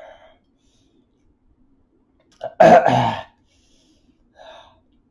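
A man's loud, harsh throat noise, under a second long, about two and a half seconds in, from someone queasy after eating ghost pepper chips. Two faint short sounds come at the start and near the end.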